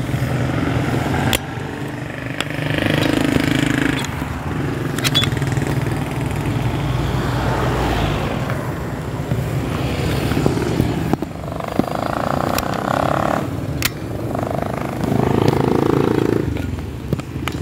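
Street traffic: motorcycle and tricycle engines running and passing close by, with scattered sharp clicks and rattles.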